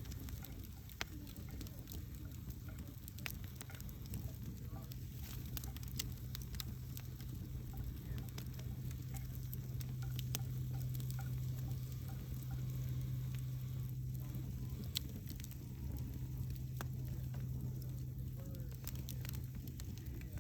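Wood logs burning in a fireplace, crackling with scattered sharp pops and snaps over a steady low rumble.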